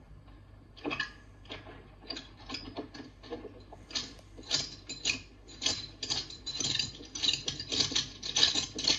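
Footsteps of several men walking on a stone floor, with metallic clicking in each step. The steps are sparse and irregular at first, then become a steady, quicker tread about four seconds in.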